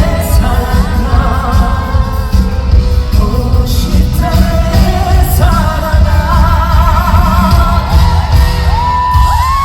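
A trot song played live and loud through a concert hall's sound system: a singer's voice with wide vibrato over heavy bass backing, ending on a long held note.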